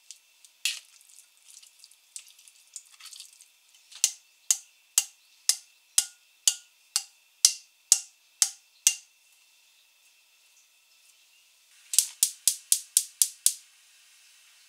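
Canned mackerel being spooned and tapped out of its metal tin into a frying pan: a string of about a dozen light metallic taps, about two a second. Near the end comes a quick run of six clicks from the gas hob's igniter before the burner lights.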